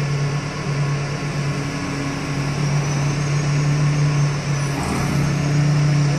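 Engine of the crane holding the bridge span, running steadily at a constant pitch, with a dull thump about five seconds in.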